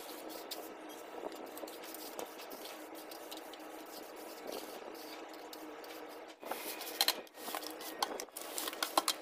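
Steel plastering trowel scraping and smoothing wet cement mortar on a concrete floor, light scratchy strokes over a steady low hum. About six seconds in the strokes turn louder and sharper, with scrapes and knocks.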